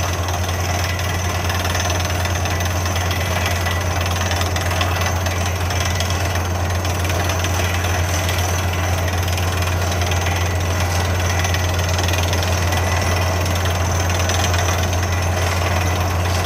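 Down-the-hole air hammer (a 6-inch hammer with a 9-inch bit) drilling a water well, a steady rapid pounding. Underneath it the drill rig's engine and 900 CFM air compressor run at a constant drone.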